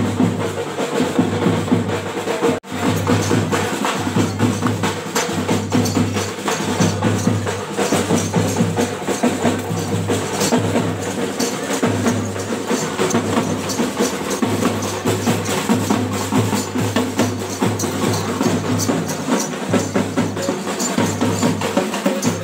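Fast, dense drumming with sharp clattering strokes in a driving, unbroken rhythm, cut off for a split second about two and a half seconds in.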